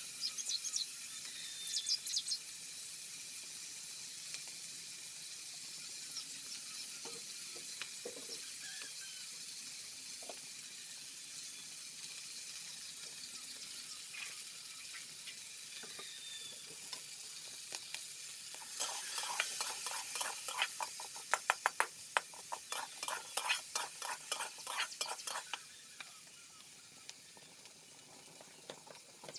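Food sizzling as it fries in a pan, with a spatula stirring and scraping against the pan in a quick run of strokes for several seconds past the middle.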